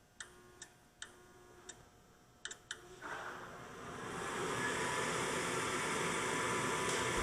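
A few light clicks, then a furnace's draft inducer motor starting about three seconds in, spinning up over a second or so and settling into a steady whirring hum. It runs with enough draft to close the pressure switch, yet the switch stays open: a bad pressure switch.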